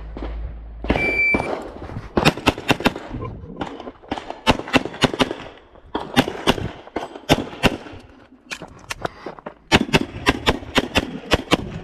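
Electronic shot timer beeps once about a second in, giving the start signal. Then an HPS/STI 2011 pistol in .40 S&W fires in quick strings of two to six shots, with short pauses between the strings.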